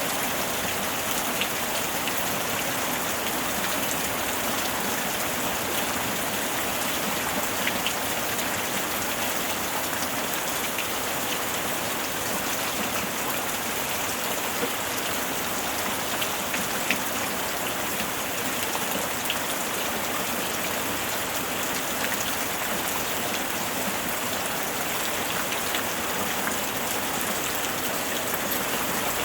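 Steady rain falling, an even hiss with scattered light drop ticks and no thunder.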